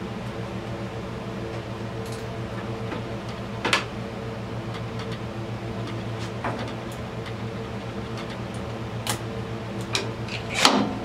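Scattered metallic clicks and knocks of a screwdriver and hands working on a carburetor, the loudest about a third of the way in and again just before the end. A steady hum runs underneath.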